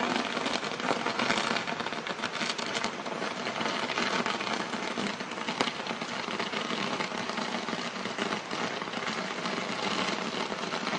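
Burning firework ladder crackling and hissing steadily, a dense mass of small pops with a few sharper cracks.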